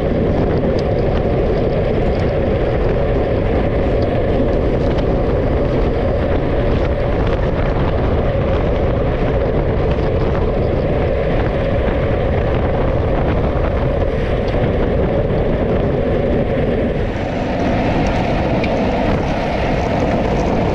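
Steady vehicle noise with wind rushing over the microphone, as from a camera moving at speed along the road. The tone shifts slightly about seventeen seconds in.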